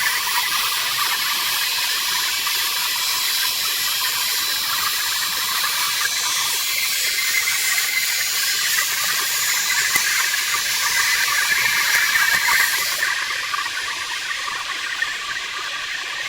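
Metal lathe turning an 80 mm round metal bar: the cutting tool and spinning work make a steady hissing cutting noise with a few sustained tones in it. Near the end the sound turns quieter and duller.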